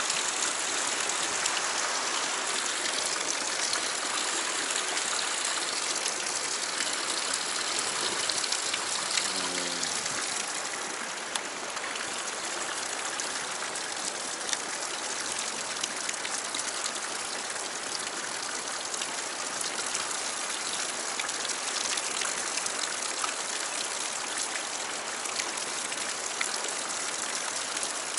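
Fast stream water rushing and churning white through a narrow rock channel, a steady gush.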